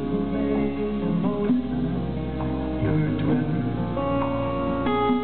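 Live band playing an instrumental passage: a strummed acoustic guitar and a resonator guitar over steady low bass notes, with no singing.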